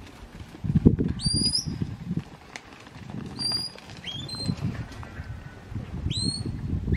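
Shepherd's whistle commands to a working sheepdog: about four short, high notes, each sliding up and then held briefly, over a low rumble.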